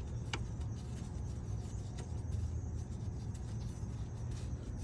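A steady low hum, with one short light click a fraction of a second in.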